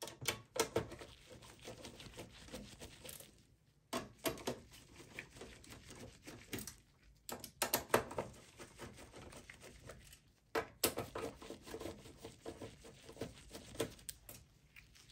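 Phillips screwdriver backing screws out of a desktop power supply's sheet-metal housing: four spells of rapid small clicks and scraping from the bit and the screw threads, with short pauses between them.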